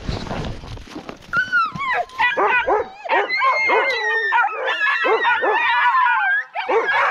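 A pack of Alaskan husky sled dogs yipping, barking and howling all at once, many overlapping calls in an excited clamour, the eager noise of sled dogs keen to be off on a run. It starts after about a second of rustling.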